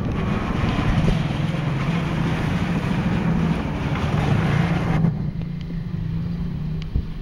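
Motorcycle engine running steadily at low speed with a wavering hum. A rushing wind noise on the microphone runs over it and cuts off suddenly about five seconds in.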